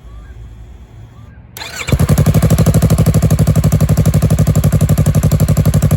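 A 2017 Yamaha R3's 321 cc parallel-twin engine starts about two seconds in and settles straight into a loud, steady, evenly pulsing idle.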